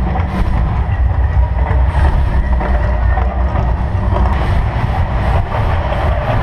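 Deep, steady rumble of a staged volcano eruption, with the rush of its gas-fired flames.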